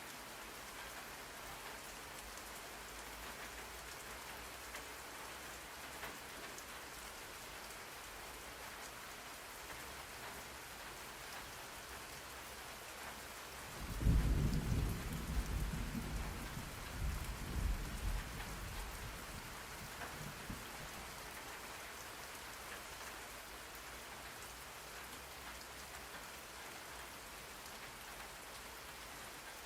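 Steady rain falling. About fourteen seconds in, a low roll of thunder breaks in suddenly, rumbles in several surges and dies away over about six seconds.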